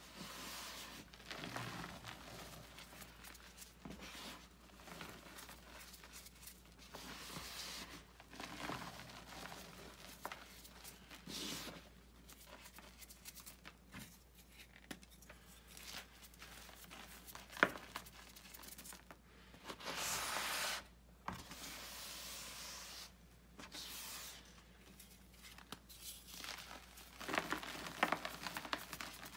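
Blocks of gym chalk crushed and crumbled by hand into loose chalk powder: soft, irregular crunching and crumbling in bursts, with one sharp click a little past halfway.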